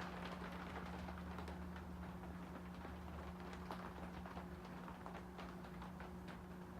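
30-inch Encon Princess ceiling fan running with a faint, steady motor hum and irregular light ticking clicks.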